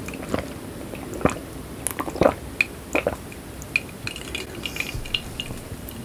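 Close-miked eating of a sambal with whole shallots: wet, squishy mouth and chewing sounds with a few sharp smacks and clicks, the strongest about one, two and three seconds in.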